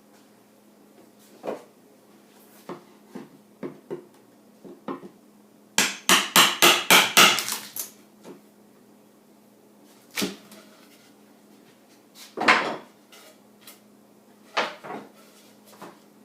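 Plywood pieces being knocked and handled, with scattered single knocks. About six seconds in comes a quick run of about eight sharp taps, roughly five a second.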